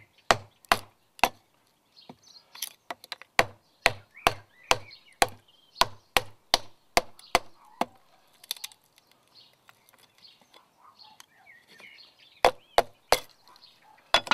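Hatchet chopping strips off a stick of smoking wood held upright on a wooden stump: sharp chops in bursts, three near the start, a quick run of about eleven over four seconds, then three more near the end.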